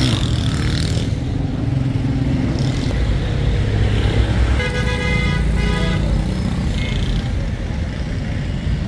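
Road traffic rumbling steadily, with a vehicle horn sounding briefly about halfway through.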